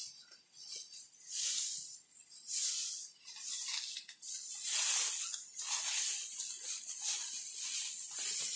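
Dry straw rustling as bundles of it are handled and spread by hand, in repeated uneven swishes about once a second.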